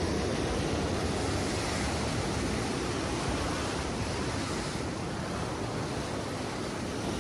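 Ocean surf at a king tide washing over rocks and against a seawall and concrete stairs: a steady rush of water, with wind on the microphone.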